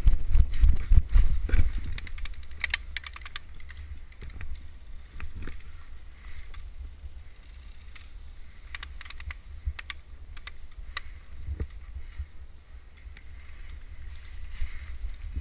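Short rapid bursts of sharp clicks, three or four clusters, over a low rumble of wind and handling on the microphone that is heaviest at the start.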